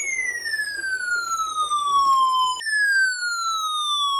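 Electronic siren-like alert tone sweeping down in pitch twice: a long fall of about two and a half seconds, then a shorter one starting lower, which cuts off near the end.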